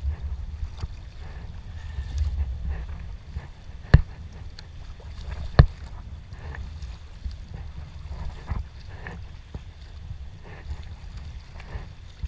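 Prijon Seayak 500 LV sea kayak being paddled: water splashing and lapping at the hull over a low rumble of wind and water on the action camera's microphone. Two sharp knocks, a second and a half apart near the middle, are the loudest sounds.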